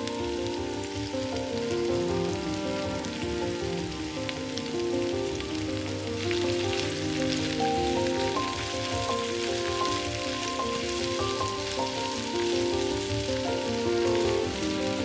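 Zucchini and onion slices frying in oil in a nonstick pan: a steady, fine sizzle that gets louder about six seconds in as the slices are stirred with a wooden spatula. Soft background music with a gentle melody plays throughout.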